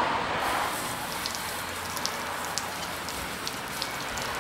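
Water from a hose spattering on a metal clamp and running off it, with scattered sharp drips, as the degreaser is rinsed away.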